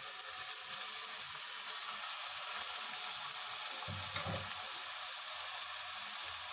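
Cooked minced meat (keema) and sliced onions sizzling steadily in hot ghee, just after the keema has been tipped into the pan. A brief low bump about four seconds in.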